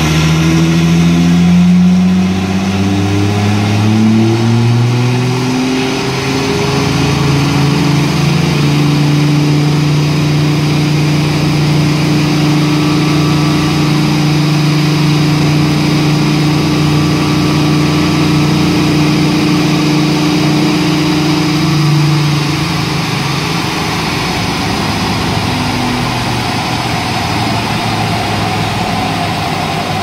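Remapped Audi A5 3.0 TDI V6 diesel with a Milltek exhaust running under load, over a constant rushing noise. Its pitch climbs over the first several seconds, holds steady for about fourteen seconds, then drops about twenty-two seconds in.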